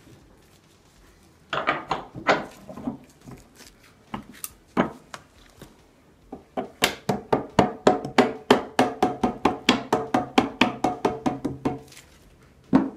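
Soft-faced hammer tapping a black pin into a cherry tenon block: a few scattered knocks, then a steady run of about five quick taps a second for several seconds, each with a short ring, and one harder knock near the end.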